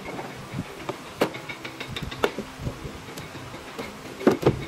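Scattered knocks and taps from carpentry work at irregular intervals, with a quick run of louder knocks near the end.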